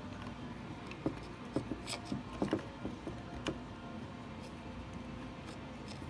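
Light clicks and taps of small parts and a hand tool being handled during distributor disassembly, a cluster of them about one to three and a half seconds in, then quieter.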